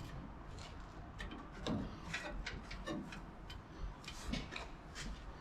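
Scattered light clicks and ticks of small air-line fittings and tubing being handled and pushed together while the air-bag lines are plumbed.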